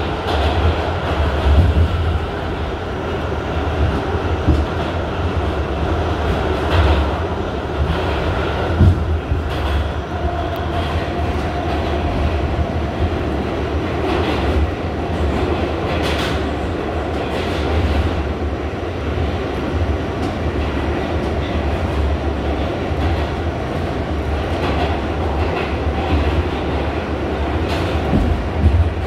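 R68 subway car running at speed through a tunnel, heard from inside the car: a steady rumble of wheels on rail, with scattered clacks as the wheels pass over rail joints.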